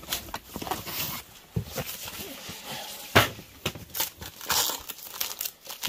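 Papers and packaging rustling and crinkling as a box is rummaged through by hand, with a sharper knock about three seconds in.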